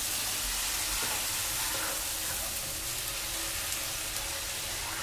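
Red masala paste frying in hot oil in a steel pan, a steady sizzle as a ladle stirs it: the tadka for a fish curry gravy.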